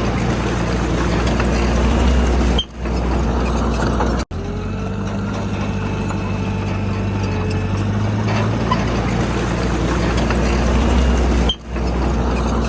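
Heavy diesel engine of earthmoving machinery running steadily under load, with a deep, even hum. It dips briefly twice and cuts out for an instant about four seconds in.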